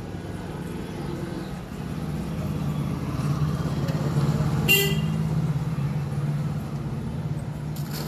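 A motor vehicle passing on the street, its engine noise swelling to a peak around the middle and easing off, with one short horn toot just after the middle.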